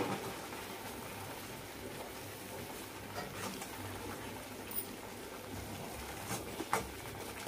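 Ground masala paste (vatan) frying in oil in an iron kadhai on low heat: a faint, steady sizzle, with a steel ladle scraping through it and clinking against the pan a few times in the second half.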